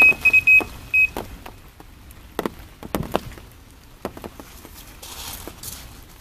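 Electronic carp bite alarm beeping rapidly at one high pitch for about the first second, signalling a run as a carp picks up the bait and takes line. After that come a few scattered clicks and knocks.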